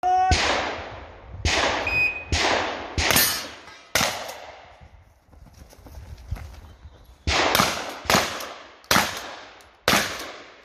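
Shotgun shots fired at close range in a string of about ten, each with a sharp report and a trailing echo: about five in the first four seconds, a pause of about three seconds, then about five more.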